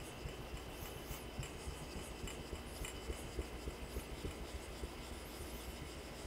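Knife blade being honed on a soft Japanese natural whetstone, an Aiiwatani stone from the Namito strata: faint, repeated swishing strokes of steel scraping across wet slurry, roughly one a second.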